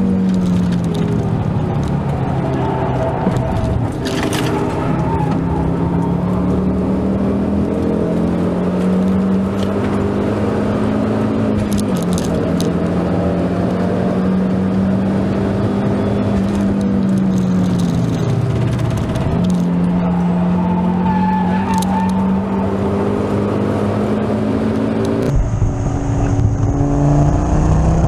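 Ford Focus ST225's turbocharged five-cylinder engine heard from inside the cabin at speed on track, its note rising and falling with sudden drops in pitch about 4, 12 and 19 seconds in as gears change. Near the end the audio cuts to another onboard recording of the engine with a different, hissier character.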